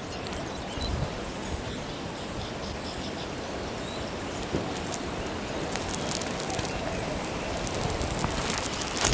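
Outdoor noise of wind on the microphone with vegetation rustling, and a run of small crackles and clicks over the last few seconds.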